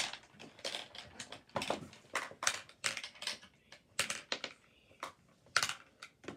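Hard plastic pieces of a Hungry Hippos game clacking and rattling: irregular sharp clicks, a few a second.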